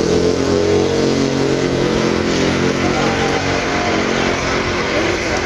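Motor vehicle engine running with a steady low drone that eases slightly near the end.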